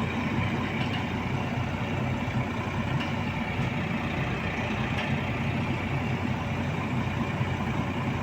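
Heavy diesel engine idling steadily, a low even hum with a few faint ticks.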